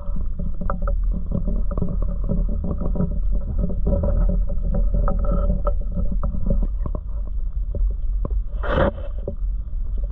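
Muffled water noise picked up by a camera held underwater beside a kayak's hull in a shallow creek: a steady low rumble full of small ticks and clicks. About nine seconds in there is one brief, louder rush of noise.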